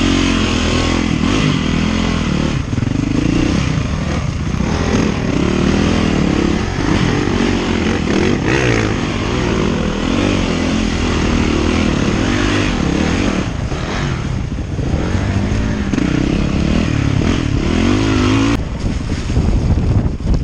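Off-road dirt bike engine revving up and dropping back over and over as the bike is worked up a rocky climb.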